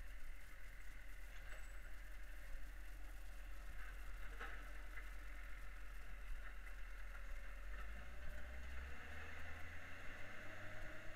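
Side-loading garbage truck running while its hydraulic arm lifts and tips a wheelie bin into the hopper. There is a single knock about four seconds in, and the engine's low rumble rises about eight seconds in.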